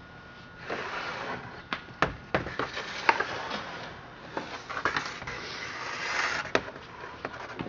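Handling noise: rustling with scattered sharp clicks and knocks as the chainsaw is moved and turned over, with one louder knock about two seconds in. The engine is not running.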